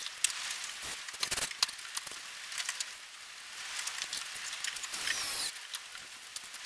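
Light wooden knocks and clicks as pine frame pieces of a skin-on-frame canoe are handled and fitted, with a short scraping of wood on wood about five seconds in.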